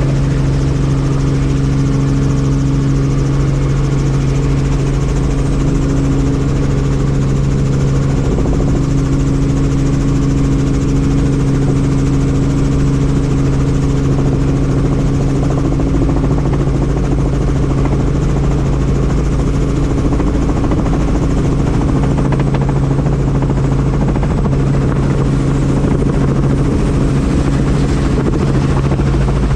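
Helicopter running steadily: a constant loud drone of engine and rotors with a steady low hum that does not change.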